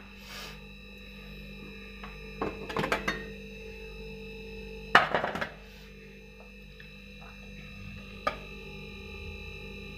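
Aluminium idli steamer plates and pot clinking as they are handled: a few light clinks two to three seconds in, one sharp metal knock about five seconds in, and another light clink near the end.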